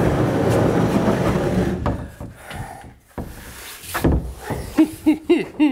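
A wooden pre-hung door in its jamb, with trim casing attached, scraping as it is dragged across the floor and into the rough opening for about two seconds. It is followed by a single knock of wood against the framing about four seconds in.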